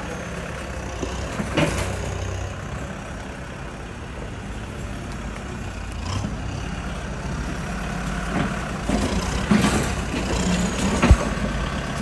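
Heavy diesel earthmoving vehicle engine running steadily with a low rumble, broken by a few short sharp knocks, the loudest near the end.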